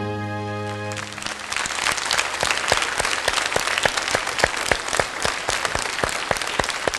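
The song's final held chord dies away in the first second or so, then a studio audience applauds, many hands clapping.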